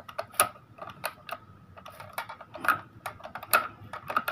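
Irregular small plastic clicks and snaps as the ink dampers and their tubes are unclipped from the printhead carriage of an Epson L120 ink-tank printer.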